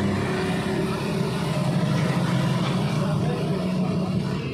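A motor vehicle's engine running close by, a steady low hum.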